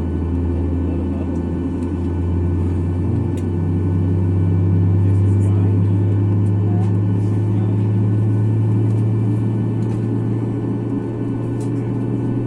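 CFM LEAP-1B engines of a Boeing 737 MAX 8 running at low power, heard inside the cabin as a steady low hum with several steady tones. The hum rises a little in pitch about three seconds in.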